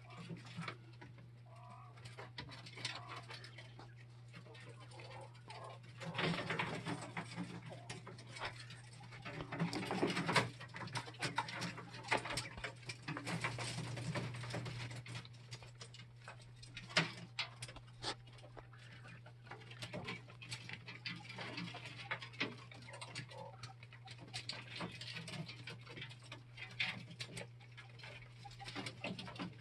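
Young coturnix quail in a wire cage calling softly, with many small clicks and scratches from pecking and moving about, over a steady low hum.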